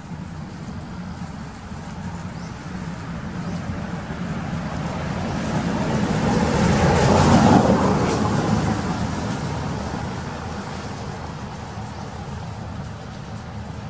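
A road vehicle driving past: its engine and road noise swell to a peak about seven and a half seconds in, then fade away.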